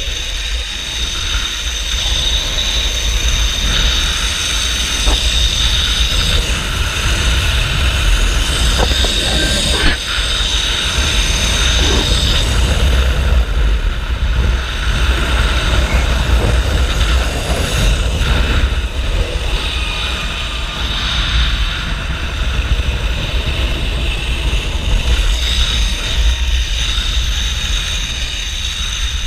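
Zip-line trolley's pulley wheels running along the steel cable with a steady high-pitched whine, over a low rush of wind buffeting the microphone.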